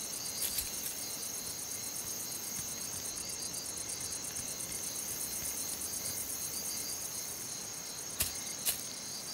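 Crickets chirping in a steady, rapid, even pulse, with a couple of sharp clicks near the end.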